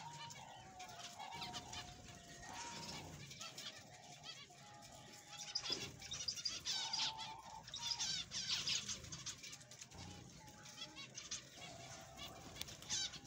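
Flock of zebra finches calling: many short, overlapping chirps, busier and louder about halfway through and again briefly near the end.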